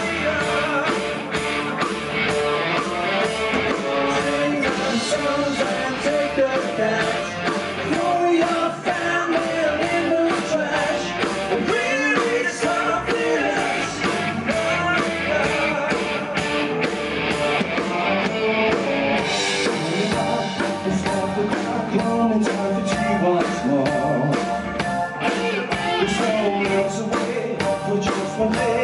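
A rock band playing live, with a drum kit and electric guitars driving a steady beat.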